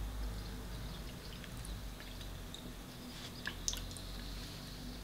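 Close-up eating sounds: a metal spoon scooping chilli from a plastic tray, then wet chewing and small mouth clicks, with two sharp clicks about three and a half seconds in, over a low steady hum.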